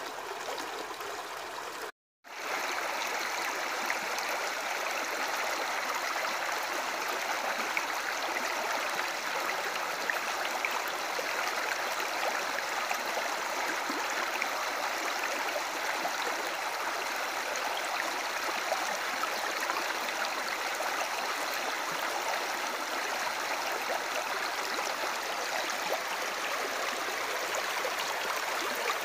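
Steady rush of moving, splashing water from an aquarium's filter circulation and rising bubbles. It cuts out briefly about two seconds in.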